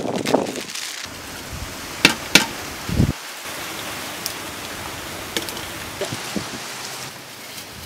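Foil packet rustling and a steel spoon clinking twice against an aluminium pot as cooked rice is scooped into the foil, with a dull thud about three seconds in, then a steady hiss with a few faint ticks.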